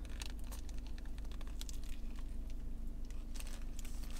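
Close-up chewing of a bite of a lettuce-filled chicken wrap: many small, sharp mouth clicks and crunches, with light rustling of the paper wrapper, over a steady low hum.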